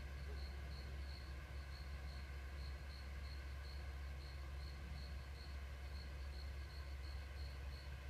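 Crickets chirping at dusk, an even high-pitched pulse about three times a second, over a steady low hum.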